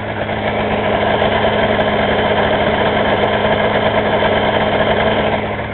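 Yamaha Vmax-4 snowmobile's four-cylinder two-stroke engine idling steadily, a little louder about half a second in.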